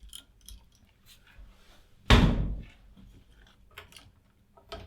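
Handling noise from work on a wall switch box: small scattered clicks, and one sharp, loud knock about two seconds in that dies away over half a second.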